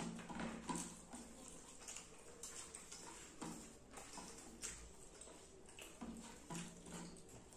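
Close-miked eating sounds of rice and fish curry being chewed: irregular wet mouth smacks and clicks, several a second.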